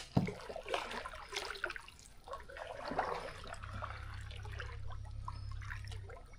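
Kayak paddle dipping and pulling through water, with splashes and drips off the blade. A low steady rumble joins in about three and a half seconds in.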